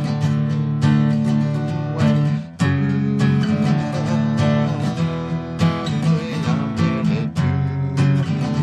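Music: acoustic guitar strummed in a steady rhythm.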